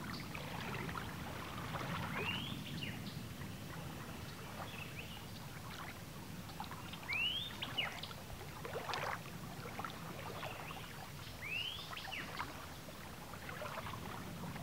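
Small waves lapping on a sandy lake shore as a steady low wash with scattered little splashes, while a bird repeats a short rising call three times, about every four to five seconds.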